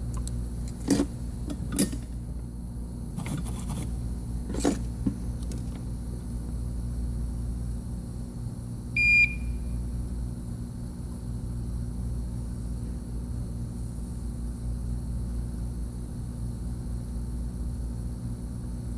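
Steady hum of electronics repair bench equipment, with a few sharp clicks and taps in the first five seconds and one short, high electronic beep about halfway through.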